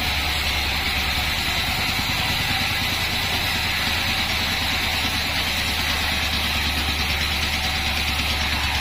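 A band sawmill running steadily: a constant low machine hum with a steady hiss above it.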